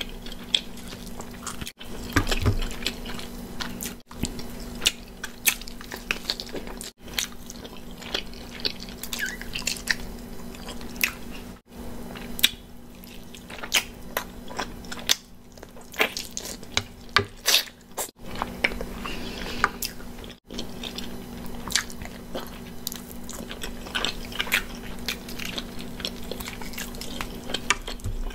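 A person biting and chewing oven-fried chicken wings, with irregular wet mouth clicks and smacks and some crunching. A steady low hum runs underneath.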